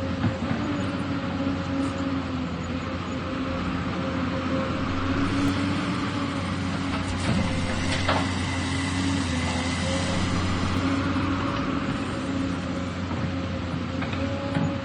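Excavator working, its diesel engine running at a steady drone, with a single sharp clank about eight seconds in.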